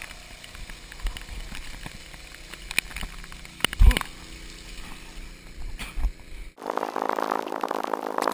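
Thumps and knocks on a GoPro action camera's microphone as its wearer runs, with one heavy thump about four seconds in. Near the end the sound cuts abruptly to a denser, steady sound.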